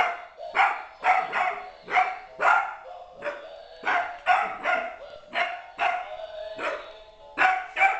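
Beagle puppy barking over and over, about two barks a second, several coming in quick pairs.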